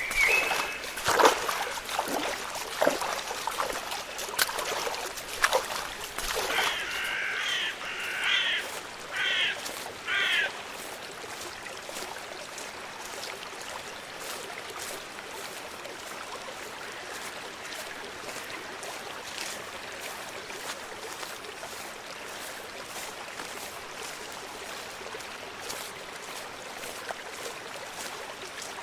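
Water trickling steadily, with scattered knocks and splashes in the first few seconds. A bird calls five times in quick succession a little before the middle, after which only the steady flow of water remains.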